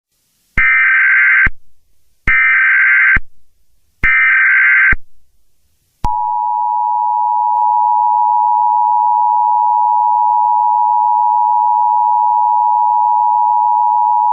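Emergency Alert System tones: three short bursts of digital SAME header data, each just under a second, then the two-tone EAS attention signal, a steady dual tone that starts about six seconds in and holds for about eight seconds before cutting off.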